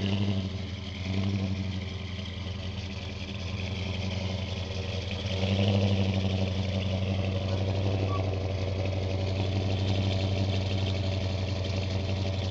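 Dodge Super Bee's V8 engine idling through its exhaust, steady and deep, briefly louder at the start and again about five seconds in.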